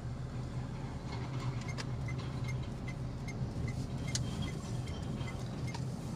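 Car cabin noise while driving: a steady engine and road hum, with a light, regular ticking of about two or three ticks a second through most of it.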